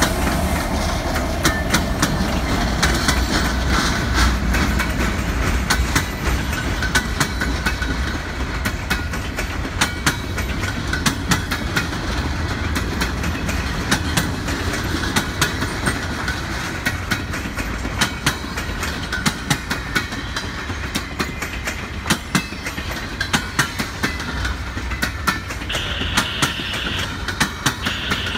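Freight train of empty flatcars rolling past over jointed rail: steel wheels clicking and clacking over the rail joints. A low diesel locomotive rumble fades over the first few seconds, and a high squeal comes in near the end.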